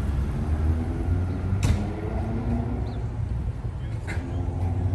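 A vehicle engine running steadily with a low rumble, and a sharp click about a second and a half in.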